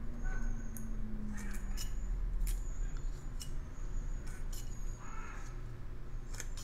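Carving knife slicing thin shavings from a basswood block in short, crisp cuts at uneven intervals, over a steady low hum.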